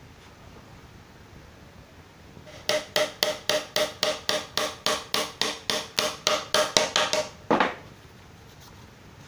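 A hammer striking in a quick, even run of about twenty blows, four or five a second, each with a short metallic ring, then one heavier final blow.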